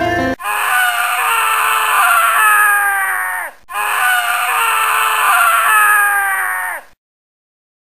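A long, loud scream, heard twice, each about three seconds long. Its pitch wavers and then drops away at the end. The two screams sound nearly identical.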